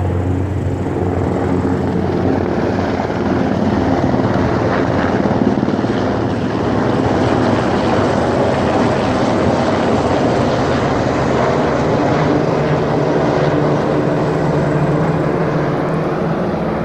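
A group of military helicopters passing low overhead, their rotor and engine noise loud and steady.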